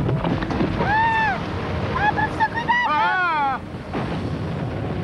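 Cartoon earthquake sound effect: a steady rumble of ground cracking and rock breaking apart, with short high-pitched cries about a second in and again between two and three and a half seconds in.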